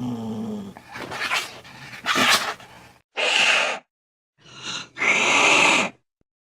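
Angry domestic cat growling and hissing: a low growl at the start, then a string of sharp hisses and spits, the last two longer, each cut off abruptly by dead silence.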